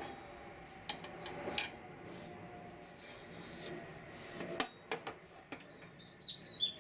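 Hands handling and assembling a portable halogen floodlight's tubular steel stand and plastic lamp housing: tubes rubbing and scraping against each other, with several sharp clicks and knocks, the loudest about four and a half seconds in. A few short high squeaks come near the end.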